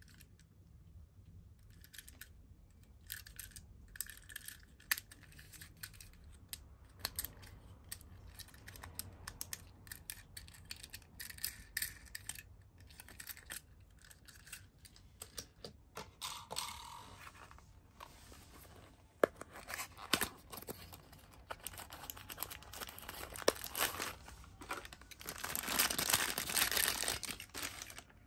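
Clear plastic wrapping crinkling and small die-cast toy cars clicking as they are handled and set down, with a denser, louder stretch of crinkling near the end.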